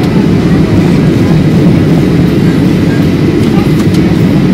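Steady, loud, deep cabin noise of a Boeing 737 airliner in flight, the engines and rushing air heard from a window seat.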